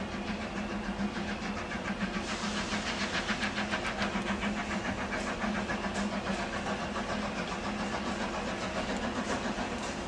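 Steam locomotive working a train of coaches, its exhaust beating in a steady rhythm of about three chuffs a second over a steady low hum.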